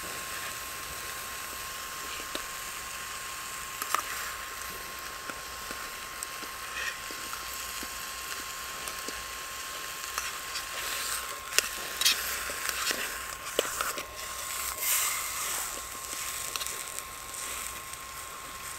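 Bacon sizzling and crackling in a titanium fry pan over a Biolite CampStove 2, with the stove's fan giving a steady thin whine. A metal spork taps and scrapes on the pan now and then, most often from about 11 to 14 seconds in.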